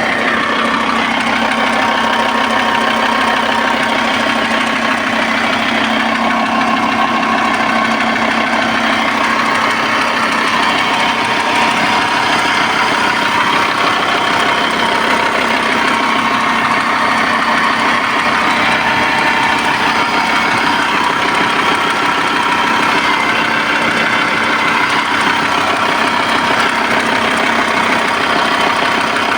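Engine running steadily with a rhythmic knock of unknown cause.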